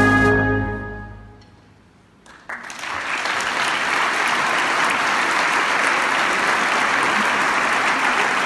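A big band's final held chord is cut off at the start and rings away into the hall. After a short lull, a large audience breaks into steady applause about two and a half seconds in.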